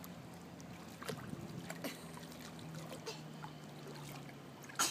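Swimming-pool water lapping and splashing lightly as a baby paddles and is picked up by a wading adult, with one louder, sharp splash near the end.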